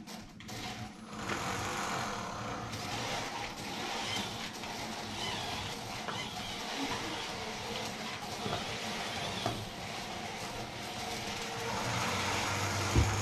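FTC competition robot driving around the field, its electric drive motors whirring steadily. A low hum sets in near the end, and a sharp knock comes just before it ends.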